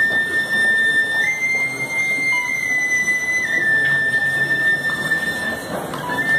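A high, steady whistling tone holding long notes and changing pitch a few times, stepping up and back down, over a low murmur of a crowd.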